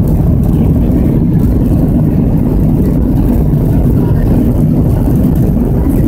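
Cabin noise of a Boeing 737-700 during the takeoff roll: its CFM56-7B engines at takeoff power make a loud, steady, low rumble inside the cabin.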